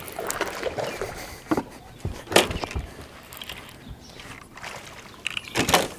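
Scattered knocks and clicks from an angler moving about a fishing boat while fighting a hooked bass, with a cluster of knocks near the end.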